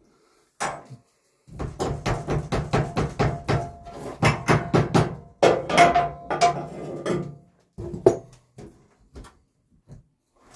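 A fast run of hard knocks on the wood framing, about five or six a second for some six seconds, with a single knock before it and a few scattered ones near the end.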